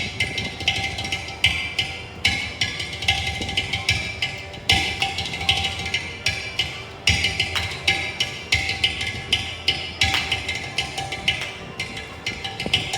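Background music driven by fast, repeated percussion strikes.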